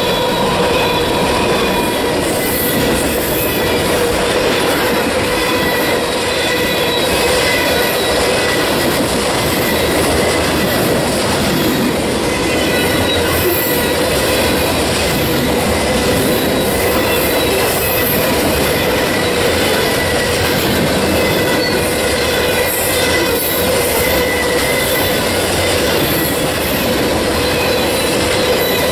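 Freight cars of a long mixed freight train rolling past at close range: a steady noise of steel wheels on rail, with a continuous high ringing squeal from the wheels over it.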